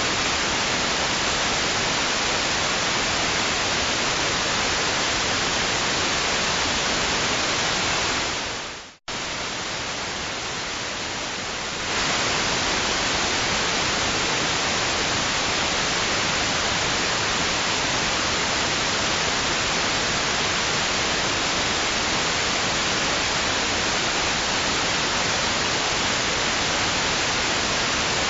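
Steady white-noise hiss, even and without rhythm. About eight seconds in it fades and drops out for an instant, comes back quieter for about three seconds, then returns to full level, like a seam where the noise loop restarts.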